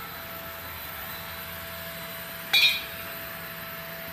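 A single sharp clink with a brief ring about two and a half seconds in, over a steady background hum.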